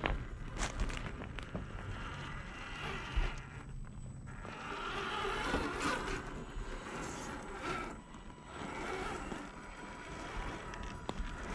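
RC rock crawler's electric motor and gears whirring as it climbs over rocks, tyres crunching and scraping on stones, over the rush of a shallow stream and wind on the microphone.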